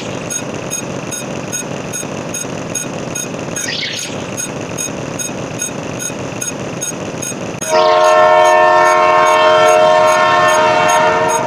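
A steady rumbling noise with regular clicking about twice a second, with a sweeping whoosh every few seconds. Near the end a loud horn-like chord of several steady notes sounds for about three and a half seconds.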